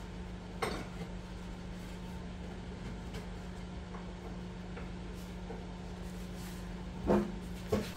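A few short hand-plane strokes shaving the edge of a wood board, one about a second in and two near the end, the later ones the loudest, over a steady low hum.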